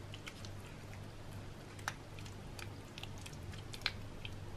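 Wooden spatula stirring a thick lentil and potato stew in a pot: faint wet squelching with a few light clicks, over a low steady hum.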